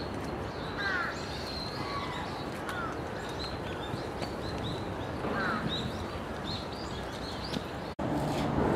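Birds calling outdoors: many short, high chirps repeat over steady background noise, with a louder sweeping call about a second in and again about five and a half seconds in. Near the end the background changes to a louder, lower noise.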